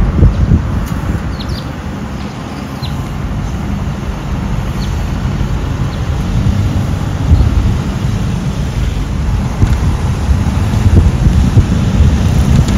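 Wind buffeting the microphone in uneven low rumbling gusts, over the steady sound of street traffic.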